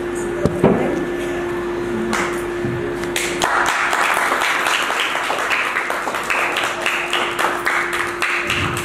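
An audience applauding, beginning about two seconds in and thickening into dense clapping a second or so later. A single thump comes under a second in, and a steady low hum underneath stops about three and a half seconds in.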